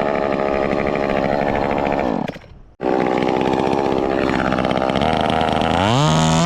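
Two-stroke chainsaw engine running. The sound cuts out abruptly for about half a second a little past two seconds in, then returns. Near the end the saw is revved up, drops briefly and revs up again.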